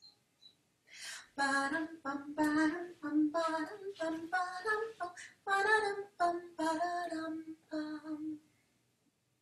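A woman singing a short minor-key song unaccompanied on neutral syllables like "ba-dum, bum", in short detached notes, starting about a second in and stopping about eight and a half seconds in.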